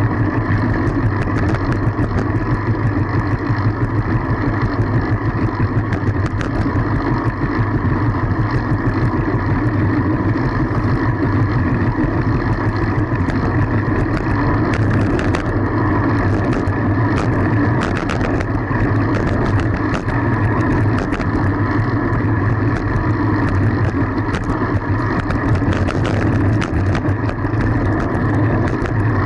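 Steady rumble of wind and road noise on a camera riding along on a fixed-gear bicycle, with a few faint clicks.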